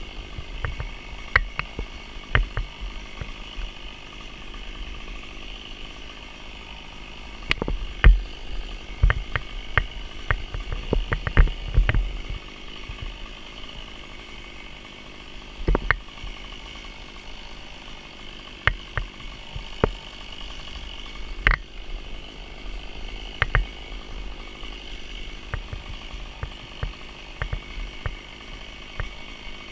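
Rope being wrapped and knotted around a palm trunk close to the microphone: irregular clicks, knocks and rubbing from rope, gloves and climbing hardware, over a steady high hiss.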